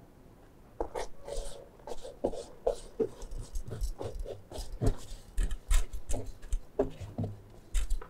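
Stainless steel soil-test sieves and pans knocking and scraping against each other as washed soil retained on a sieve is tipped and knocked out into a pan; a string of irregular clinks and knocks.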